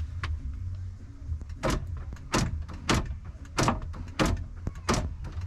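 Power door locks of a 2007 Chrysler Town & Country clunking as they are cycled lock and unlock over and over: six sharp clunks about two-thirds of a second apart, starting nearly two seconds in, over a steady low hum. The passenger-side lock actuator motor has failed and stays locked while the others work.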